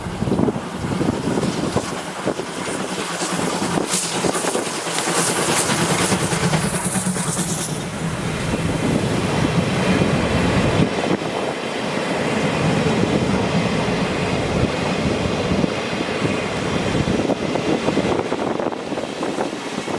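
Steam-hauled excursion train passing close by, its carriages rumbling and clattering over the rail joints. Wind buffets the microphone throughout, and a high-pitched hiss rises about four seconds in and stops near eight seconds.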